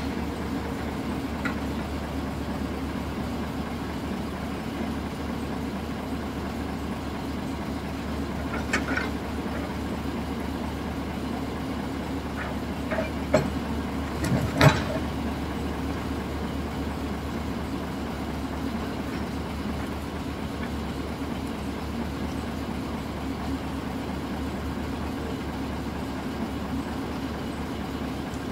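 Log-loading excavator's engine running steadily, with a few short wooden knocks as the grapple handles logs. The loudest knock comes about halfway through.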